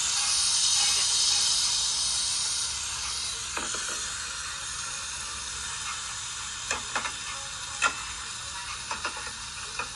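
Marinated beef sizzling on a tabletop Korean barbecue grill. The sizzle is loudest for the first few seconds, as marinade is poured over the hot meat, then settles to a steadier hiss. A few sharp metal clicks from the tongs come in the second half.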